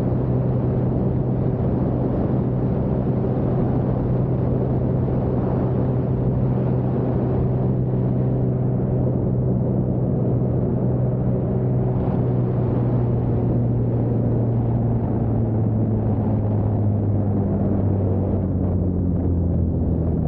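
Lake Renegade amphibian's pusher piston engine and propeller running steadily with a deep droning note. The pitch sinks slightly in the second half.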